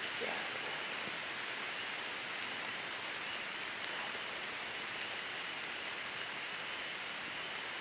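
Steady, even hiss of outdoor background noise, with no distinct events in it.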